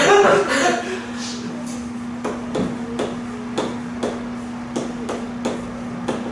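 Chalk clicking and tapping on a blackboard as characters are written, short sharp strikes about two a second.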